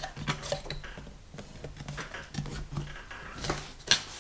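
Allen key turning in a Lamello Clamex S20 connector set in MDF panels to draw the joint tight: a run of small irregular metal clicks and scrapes, with a sharper knock near the end.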